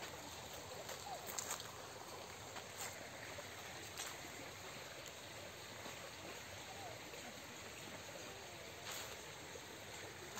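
Small, shallow stream flowing, a faint, steady rush of water, with a few faint clicks here and there.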